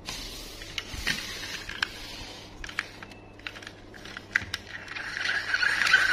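Plastic clicks and taps of a toy monster truck with spring suspension being picked up and handled, followed near the end by a rising whirring from its wheels and gearing.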